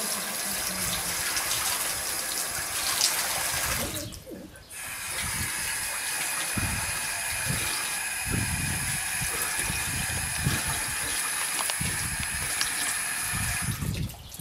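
Water running from a tap into a stainless-steel sink and splashing over a foot being washed under it. The flow stops briefly about four seconds in, then runs again until just before the end.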